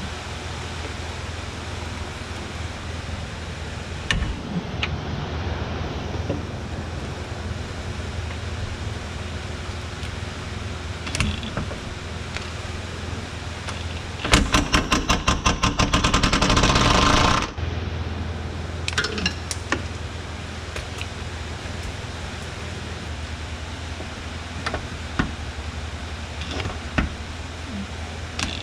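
An impact wrench working on suspension or subframe bolts, hammering for about three seconds about halfway through: quick rattling pulses that run into a steady buzz, then cut off suddenly. Scattered metal tool clinks over a steady low hum.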